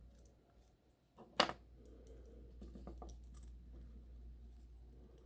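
Faint clicks and light rattling of small plastic parts of a model locomotive drive truck being handled, with one sharp click about a second and a half in.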